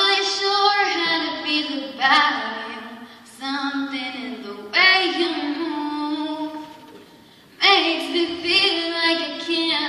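A young girl singing solo into a microphone, with no accompaniment heard: three sung phrases of long held notes, with short pauses for breath between them.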